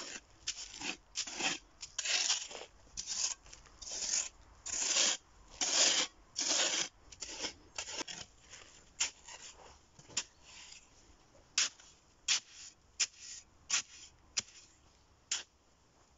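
Shovel blade scraping and digging into sandy soil, stroke after stroke. The first half has longer scrapes that run close together; later come shorter, sharper single strokes about every half second to second.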